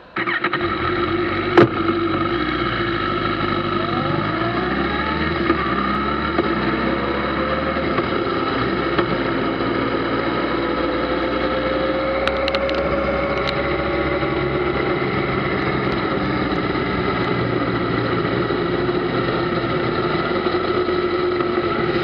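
Kawasaki ZZR1400's inline-four engine running while the motorcycle is ridden, a steady engine note whose pitch drifts slowly up and down with the throttle. A sharp click about a second and a half in.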